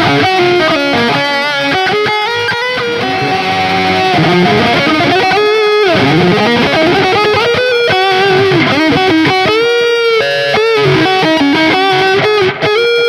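Electric guitar through Ibanez STD C1/C2 humbucker pickups playing a sustained single-note lead, with wide vibrato, pitch bends and a fast run of notes a little past the middle.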